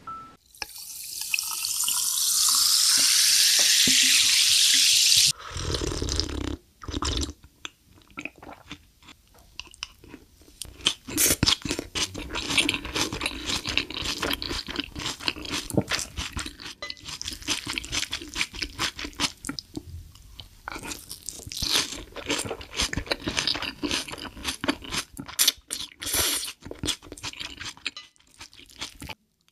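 Close-miked ASMR eating of a raw salmon rice bowl: a wooden spoon scooping in the bowl, then wet chewing with many small clicks and smacks. It opens with a loud, steady rushing hiss lasting about five seconds.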